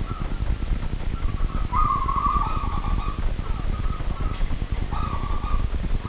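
A zebra dove (perkutut) cooing: a strong phrase of trilled coos about two seconds in and a shorter one near the end, over a steady low rumble.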